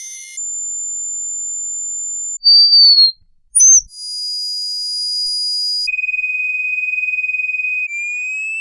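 Synthetic tinnitus ringing effects played one after another, each a single high-pitched whine lasting about two seconds. Some are steady, one falls slightly, one has a hiss beneath it, and near the end a lower one slowly rises in pitch. They simulate the ringing in the ears of tinnitus and hearing loss.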